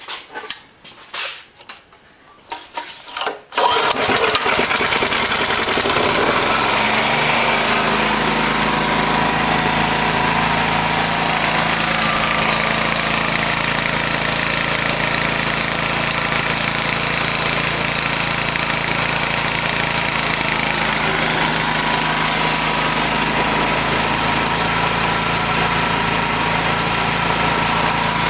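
Irregular clatter, then a 9-horsepower overhead-valve engine starting about three and a half seconds in and running steadily. It comes up to speed over the next couple of seconds. The engine drives a permanent magnet alternator by a belt that has been slackened for starting.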